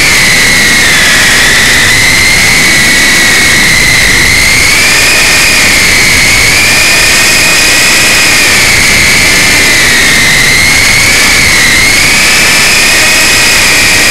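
Small electric RC helicopter's motor and rotor, heard loud and close through its own onboard camera's microphone: a steady high whine that wavers slightly up and down in pitch, over a rushing hiss.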